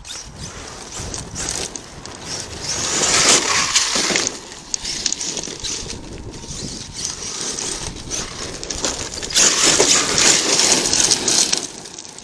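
Arrma Kraton 8S RC truck tearing across rocky dirt, its tyres crunching and scattering gravel and small rocks, in two louder spells of about two seconds each.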